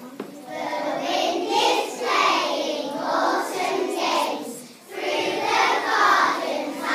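A group of young children singing a song together, starting about half a second in, with a short break for breath near five seconds before they carry on.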